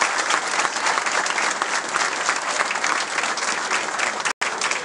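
A crowd applauding: many hands clapping steadily together, with a very brief dropout near the end.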